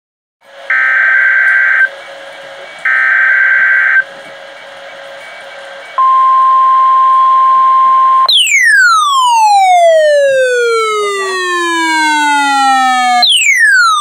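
Midland ER-310 weather radio receiving a NOAA Weather Radio Required Weekly Test: two roughly one-second bursts of warbling SAME digital header data over faint static, then a steady high alert tone for about two seconds. The radio's own alert siren follows, a loud tone sweeping down in pitch over about five seconds, and it starts again near the end.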